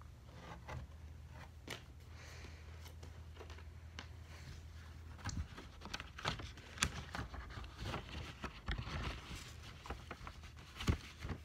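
Light handling noise: rustling and scattered small clicks and taps as a vinyl record is handled and slid into its sleeve, sparse at first and busier from about five seconds in.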